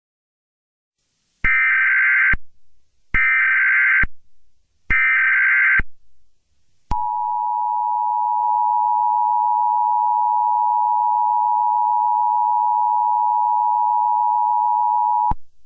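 Emergency Alert System header: three short bursts of buzzy SAME data tones, each just under a second, followed by the two-tone EAS attention signal held steady for about eight seconds before it cuts off. This is the signal that an emergency alert message is about to be broadcast.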